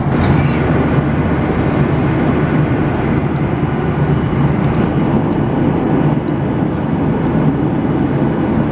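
Steady engine and airflow noise inside the cabin of a Boeing 737-800 in flight, from its CFM56-7B turbofans, a constant low drone with no change in level.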